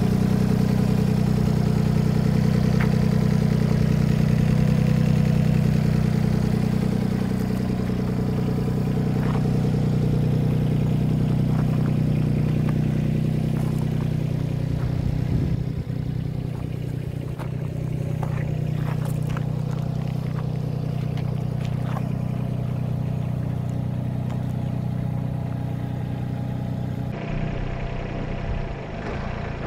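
2011 Yanmar SV15 mini excavator's small three-cylinder diesel engine running at a steady idle, with a few light clicks and knocks partway through.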